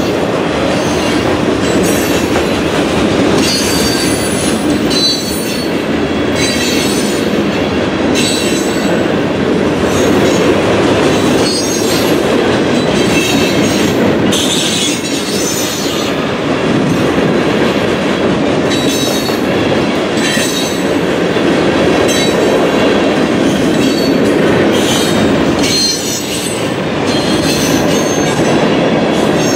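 Freight train cars rolling past: a steady rumble of steel wheels on rail, with frequent short, high-pitched wheel squeals coming and going.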